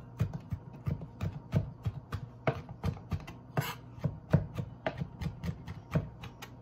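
Chef's knife rock-chopping fresh rosemary leaves finely on a cutting board: a quick, uneven run of blade taps, about three a second.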